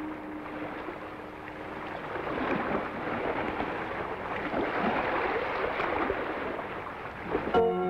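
Rushing waves and wind of a rough sea, swelling after the first couple of seconds. A held woodwind-like note fades out at the start, and music comes in just before the end.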